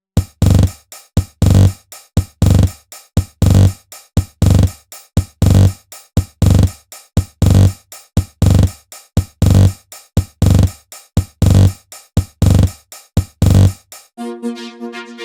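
Electronic music: a drum-machine beat with a deep kick repeating steadily about twice a second. Near the end the beat stops and sustained synthesizer chords take over.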